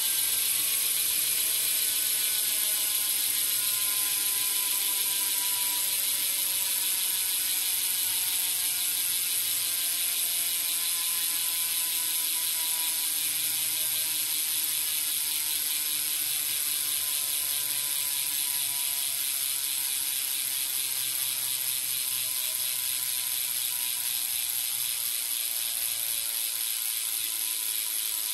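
Animal Javelin BMX cassette rear hub freewheeling as the wheel coasts. Its pawls click over the ratchet ring so fast that they blend into a steady buzz, which slowly drops in pitch and level as the wheel winds down.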